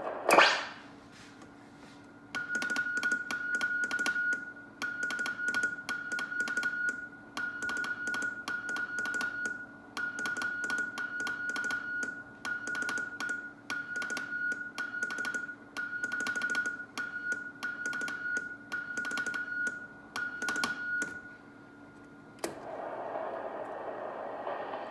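A CQ call sent in Morse code on the straight key of a 1942 British SOE Type 3 Mk II spy radio: a steady high beep keyed into dots and dashes, each with a sharp key click. It opens with one loud click, and near the end a click brings in a steady hiss of band static from the set's receiver.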